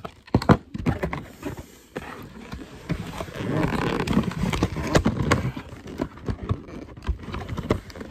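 Handling noise from plastic toy parts and their box close to the microphone: irregular clicks and knocks, with a stretch of denser rustling from about three to five and a half seconds in.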